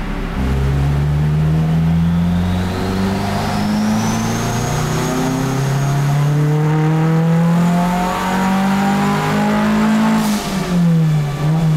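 Turbocharged Honda Civic VTi's 1.6 VTEC four-cylinder engine revving up under full throttle, its pitch climbing steadily for about ten seconds while a turbo whistle rises and then holds. Near the end a short rush of air comes as the throttle closes, and the revs fall away.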